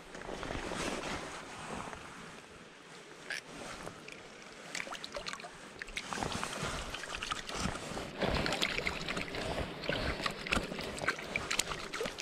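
Shallow rocky stream trickling, with water splashing as hands dip and rinse in it; the splashing grows busier about eight seconds in.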